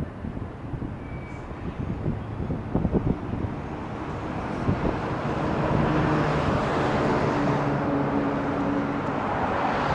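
Train approaching: a rumble that grows louder about halfway through, with a steady low engine hum.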